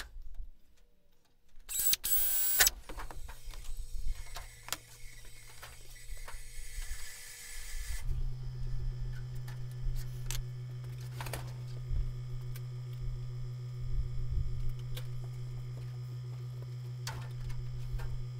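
Hand work on an aluminium aircraft skin held with clecos: a short burst of high hiss from an air tool about two seconds in, then scattered light clicks and metal taps. From about eight seconds a steady low hum runs under the clicks.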